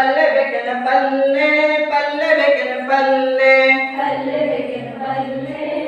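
A group singing a Kannada action song (abhinaya geete), with long held notes.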